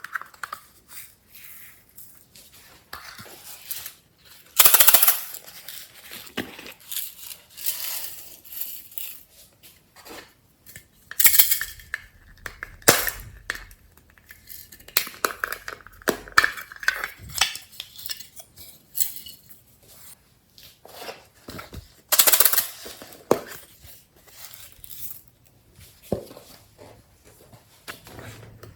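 Glossy slime being squished and stretched by hand, giving irregular sharp clicks, pops and crackles of trapped air, in louder clusters a few times.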